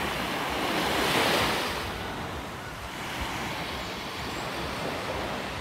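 Surf washing onto a sandy beach, one wave swelling to a rush about a second in and then fading back.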